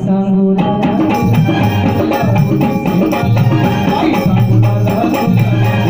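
Live Marathi folk song (a Bhim geet) with hand percussion and jingling rattle-like percussion keeping a steady rhythm over sustained instrumental notes.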